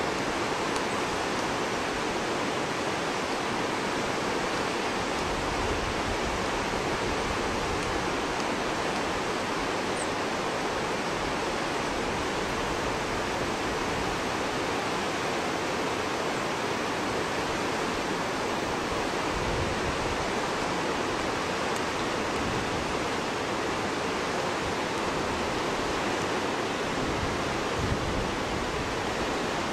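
Steady rushing of a fast mountain river, the Ganga's headwater at Gangotri, an even noise of water with no break.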